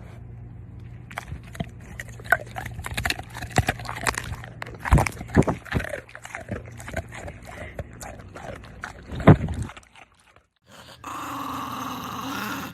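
Dog vocalising with growls and whimpers amid many short knocks and scuffles, cutting off about ten seconds in.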